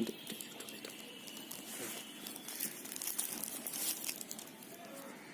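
Packaging crinkling and tearing as a smartphone's retail box is unwrapped and opened, with irregular small crackles throughout.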